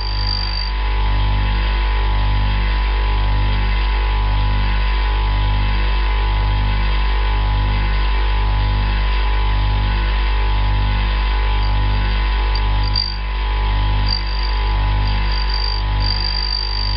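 Bench grinder running with a steady hum while its cup wheel grinds the flutes of an end mill held in a sharpening fixture. A thin, high whine comes and goes, clearest near the end.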